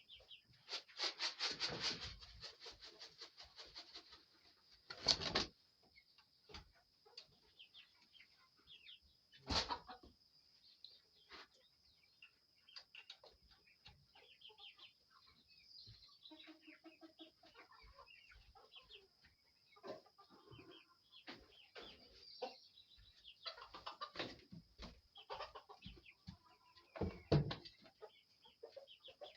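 Chickens clucking faintly, with scattered short calls and a few louder sudden noises spread through.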